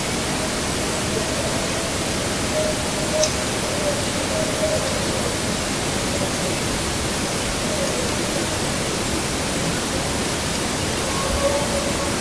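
Steady hiss of a body camera's microphone recording a quiet night, with a faint drawn-out tone wavering in pitch through most of it and a few faint ticks.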